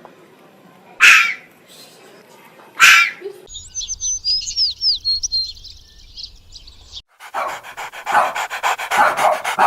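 A dog barks twice, about two seconds apart, then a short stretch of small birds chirping, then from about two-thirds of the way through a dog panting fast and rhythmically.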